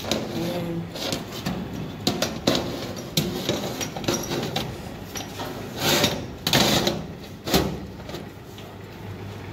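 Metal baking trays scraping and clattering against the wire racks of a countertop electric oven as they are slid in, with irregular clicks and knocks, two longer scrapes about six seconds in and a sharp knock about a second later.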